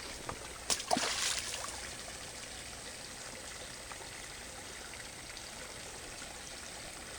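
A large stone thrown into a creek lands with a splash about a second in, followed by the creek's steady trickle of running water.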